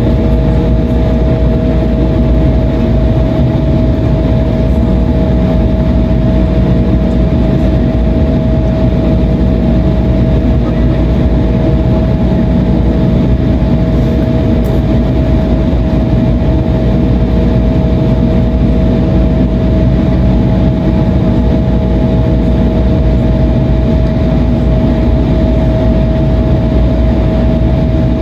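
Cabin noise of an Embraer E175 taxiing: its twin GE CF34-8E turbofan engines run as a steady, loud rumble with a constant whine over it.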